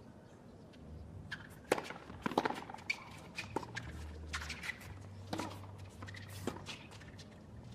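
Tennis rally on a hard court: a string of sharp hits of the racket on the ball and ball bounces, with shoe squeaks and scuffing footsteps in between.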